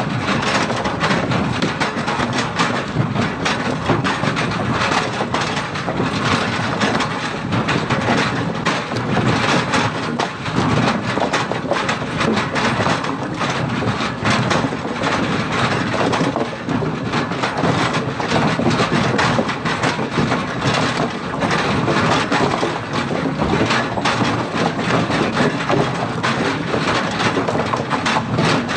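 Hydraulic excavator grinding a grapple-load of eucalyptus logs against a steel debarking frame, a continuous crunching and cracking of wood with many sharp knocks as the bark is stripped, over the excavator's diesel engine running.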